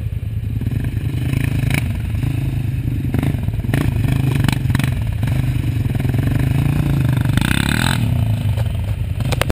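Quad bike (ATV) engine running and revving as the bike weaves through a slalom, with several short clatters.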